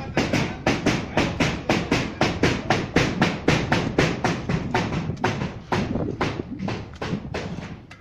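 Quick, even footsteps crunching on gravelly dirt, about three to four a second.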